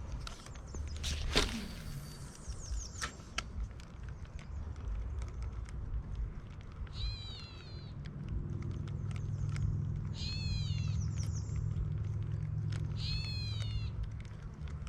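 A bird calls three times, each call a quick run of repeated down-slurred notes, over a low steady rush. A short sweeping whoosh falls from high to low about a second in.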